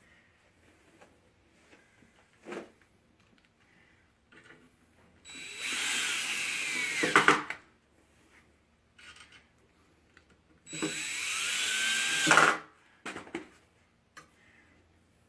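A power drill driving No. 10 one-inch screws into wood in two runs of about two seconds each. Near the end of each run the motor's pitch drops as the screw seats. A few light knocks come in between.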